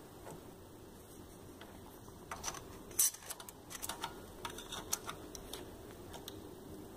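Light metallic clicks and taps as a thin band saw blade is handled and set between the clamping jaws of a band saw butt welder. The sharpest click comes about three seconds in.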